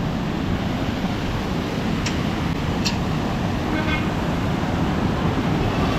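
Steady rushing noise of wind and running water on an exposed, rainy hillside, with a few light clicks about two and three seconds in.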